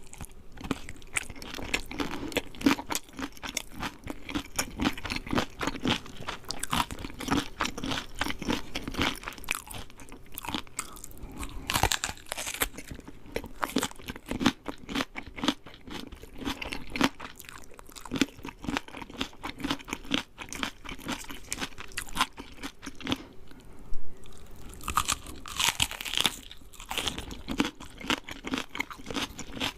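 Close-up crunching and chewing of KFC fried chicken: a dense run of crisp crackles from the breaded skin, with louder crunchy bites about twelve seconds in and again near the end.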